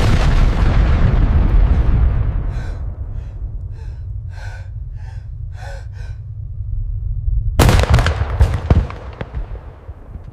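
A heavy explosion booms and rumbles away, and over the low rumble a person gasps in a string of short, quick breaths. About seven and a half seconds in, a second explosion hits and rumbles down.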